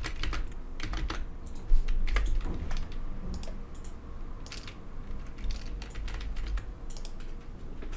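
Typing on a computer keyboard: irregular runs of key clicks, with one louder click a little under two seconds in, over a low steady hum.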